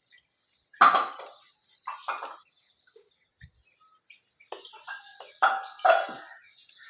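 A spoon or fork clinking and scraping against a bowl as masala seasoning is mixed into instant noodles. There are a couple of sharp clinks about a second in and at about two seconds, then a quicker run of clatters near the end.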